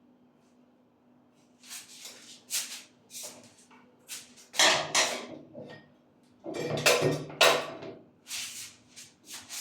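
A run of irregular knocks, scrapes and rustles from parts being handled and set in place, starting about a second and a half in and loudest in the middle.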